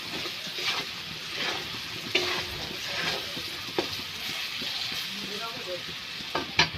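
Potato and pointed gourd pieces sizzling in oil and spices in a kadai while a spatula stirs and scrapes them against the pan, with scattered scrapes over a steady sizzle: the spices are being sautéed before the water goes in.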